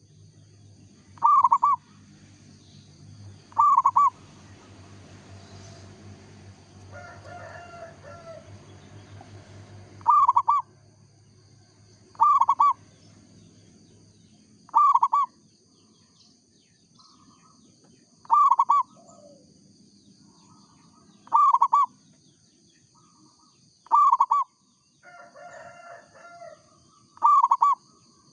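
Zebra dove (perkutut) cooing its song, about nine short, loud calls a few seconds apart. A steady high whine runs underneath, and another bird calls twice in between.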